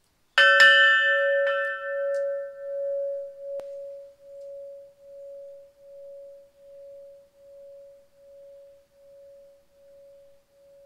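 A large hanging tubular chime struck once. It rings with one clear, long-lasting tone that slowly fades, pulsing gently in loudness, while its brighter upper tones die away within a couple of seconds.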